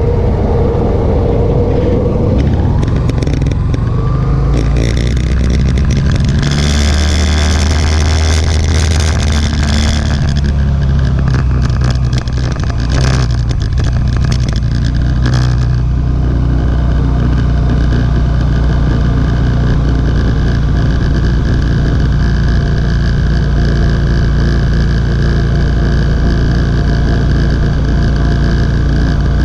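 Motorcycle engine running as it is ridden, picking up speed a few seconds in, with a rush of wind noise over the microphone for several seconds, then settling into a steady cruise.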